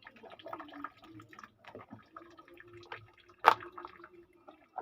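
Water dripping and trickling into a washing machine tub, with a faint steady hum through the middle and a single sharp knock about three and a half seconds in.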